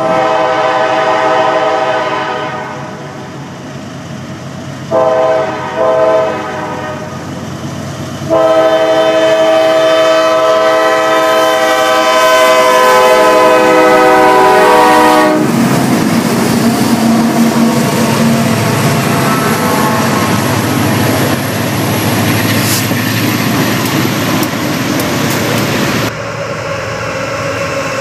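CSX diesel locomotive's multi-chime air horn: a blast, then two short blasts, then one long blast of about seven seconds. After it ends, GE C40-8W and AC44CW diesel locomotives pass close by, engines running and the train rumbling over the rails. Near the end the sound changes abruptly to another CSX diesel locomotive passing.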